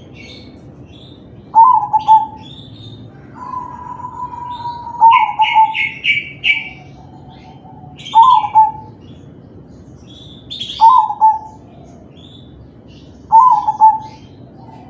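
Zebra dove (perkutut) cooing: a short rolling coo phrase repeated five times, about every three seconds. Smaller birds chirp faintly and high-pitched in the background, with a quick run of chirps near the middle.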